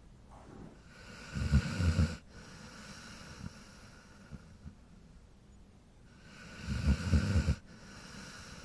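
A dog snoring: two snores about five seconds apart, each swelling over about a second into a rasping run of quick pulses and then cutting off sharply.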